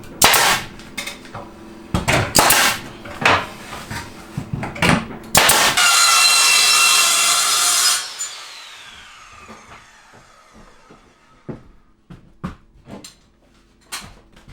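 Wood being cut: a series of rough strokes, then a power saw runs for about two and a half seconds and winds down with a falling whine, followed by a few light taps.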